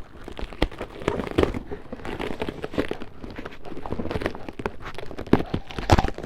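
Packing material rustling and crinkling as pieces of an unassembled wooden bench are taken out of their box, with scattered knocks and clunks of the wood being handled, the loudest ones near the end.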